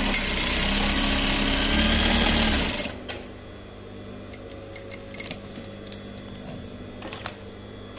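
Industrial straight-stitch sewing machine sewing a test seam at speed for about three seconds, then stopping. After the hook adjustment it sews without skipping a stitch. A fainter steady hum and a few light clicks follow.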